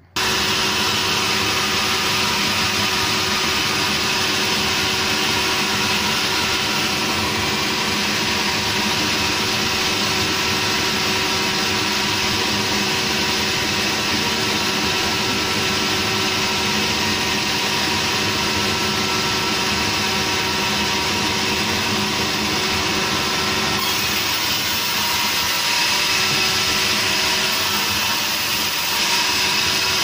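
Sawmill machinery running: a log saw and its drive give a steady mechanical drone with a constant hum, a little louder near the end.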